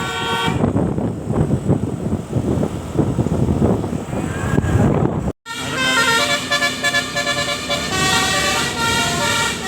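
Multi-tone 'telolet' bus horn playing its stepping melody, stopping about half a second in, then several seconds of rough noise without tones. After a sudden break at about five seconds the telolet horn melody starts again and plays on.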